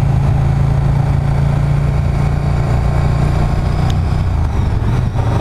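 KTM 1290 Super Duke GT's V-twin engine running at a steady cruise on the move, with wind rush over the microphone. The engine note drops slightly about four seconds in as the throttle eases.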